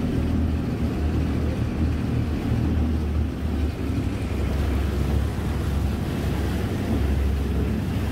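Amphibious duck tour vehicle's engine running steadily as it cruises on the water: a low, even drone, with some wind noise on the microphone.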